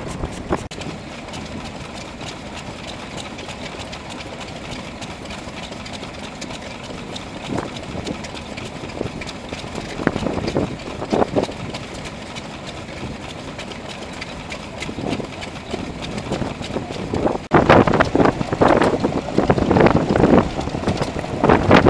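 Small vintage stationary engines running one after another. In the last few seconds a Petter M-type 1½ hp two-stroke oil engine driving a water pump gives louder, uneven firing beats.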